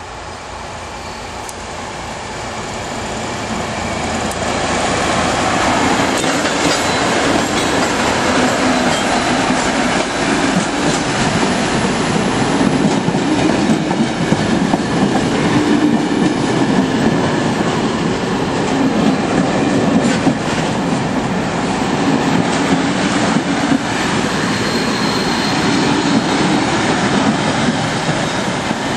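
Freight train hauled by two Dv12 diesel locomotives passing close by, growing louder over the first few seconds as the locomotives draw level. Empty timber wagons follow, their wheels clattering over the rail joints.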